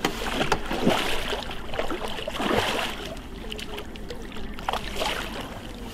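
Water sloshing and trickling against the side of a boat, with a few light knocks, as a hooked pike is brought in beside the boat.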